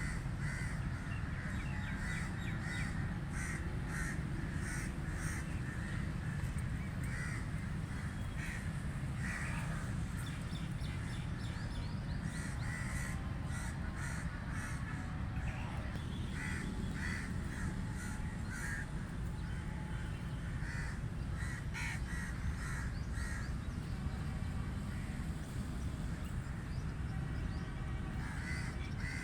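Several crows cawing over and over, their calls overlapping throughout, over a steady low rumble.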